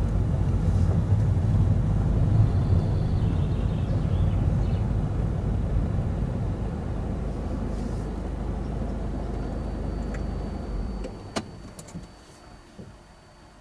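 Car engine and tyre rumble heard from inside the car as it rolls slowly forward, dying away about eleven seconds in as the car comes to a stop. A single sharp click follows soon after.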